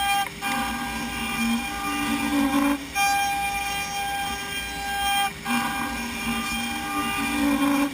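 CNC router spindle of a Format4 machining centre milling wood in 3D: a high steady whine with cutting noise underneath that swells and fades. It breaks off briefly about every two and a half seconds.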